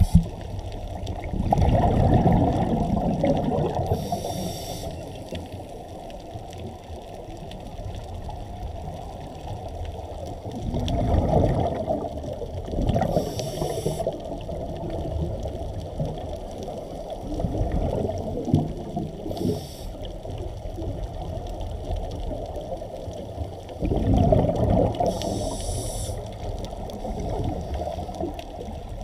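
Scuba diver's breathing heard underwater through the camera housing: a gurgling rush of exhaled bubbles about every seven seconds, each paired with a short regulator hiss, over a steady muffled water wash.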